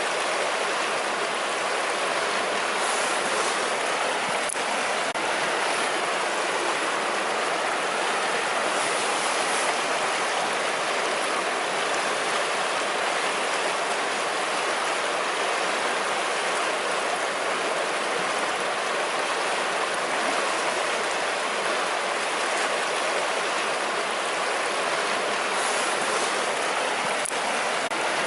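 River water flowing and rushing over its bed in a steady, even stream.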